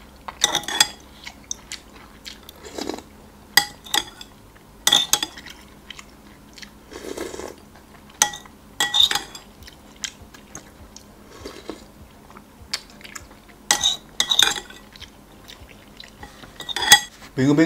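A person eating Sarawak laksa: slurping noodles and broth and chewing, with metal spoon and fork clinking and scraping against a glass bowl. The sounds come in short separate bursts every second or few, with quieter gaps between.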